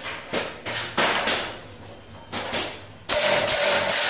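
A quick series of knocks and scrapes from a sliding-door railing being fitted to its jamb, each one ringing briefly in a bare room, with a longer scrape about three seconds in.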